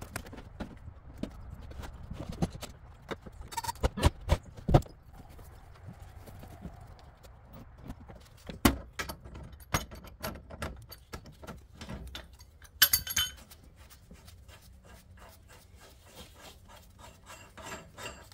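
Scattered knocks and metal clanks from handling a stepladder and pipe wrenches on a steel gas pipe, with a cluster of loud knocks about four seconds in, another near nine seconds, and a brief rasp around thirteen seconds.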